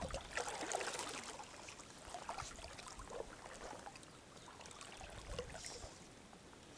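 Faint river water trickling and lapping, with small irregular splashes.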